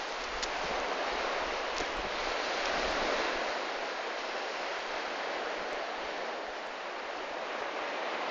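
Sea surf washing on a beach: a steady rush of waves that swells a little about three seconds in.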